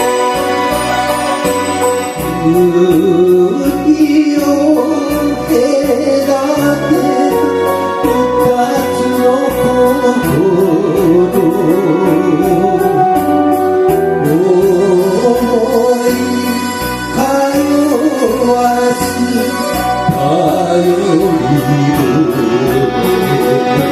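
Karaoke singing of an old Japanese popular song: a solo voice with a wavering vibrato sings into a microphone over a backing track with a steady beat, the voice coming in about two seconds in.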